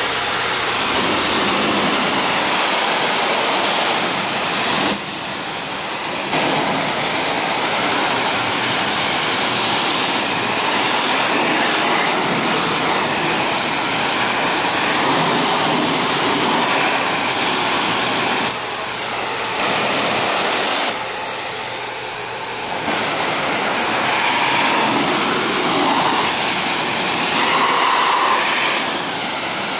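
Pressure washer wand blasting water onto a car's bodywork, a steady hissing spray. It breaks off briefly a few times, at about 5 s and twice around 19 to 23 s, as the trigger is let go or the jet turns away from the panels.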